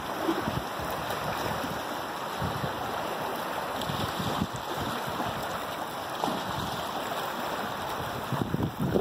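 Wind buffeting the microphone over the steady wash of choppy seawater, in uneven gusts.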